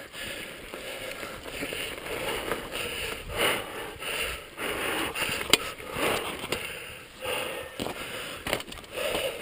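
Mountain bike riding down a dirt trail: tyres rolling over loose dirt and gravel, with a run of clatter and clicks from the bike jolting over bumps, and one sharp click about five and a half seconds in.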